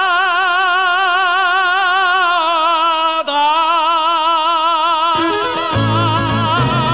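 A male singer holds a long, high closing note of the song with wide, even vibrato, alone at first. About three seconds in the note briefly catches and settles slightly lower before swelling again. A little after five seconds the band comes in with low notes under the still-sustained voice.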